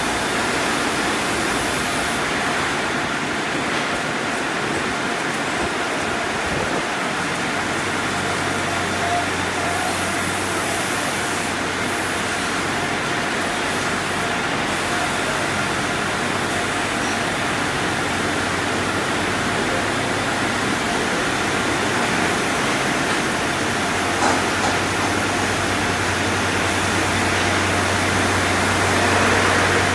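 Car wash tunnel equipment running: foam wash brushes spinning against cars and water spraying, a steady rushing noise. A low hum comes in about eight seconds in.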